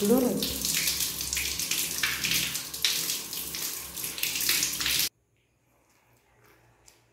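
Tap water running and splashing onto a baby monkey and the hands washing it, a steady rush that cuts off abruptly about five seconds in, leaving near silence. A brief pitched vocal sound at the very start.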